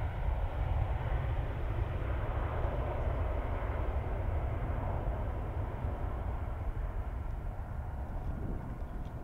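Airbus A350's Rolls-Royce Trent XWB turbofan engines at takeoff power during the takeoff roll. A steady jet roar fades slowly as the aircraft moves away down the runway.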